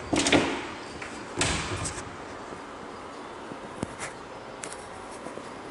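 Wooden kitchen cabinet doors being opened and shut: a loud knock just after the start, a second one about a second and a half in, then several light clicks.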